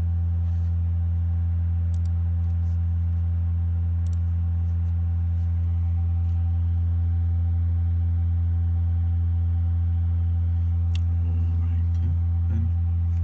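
RUMUL Testronic resonant fatigue testing machine running a crack-growth test on an aluminium specimen at its resonant frequency of about 85 Hz: a steady low hum with evenly spaced overtones above it.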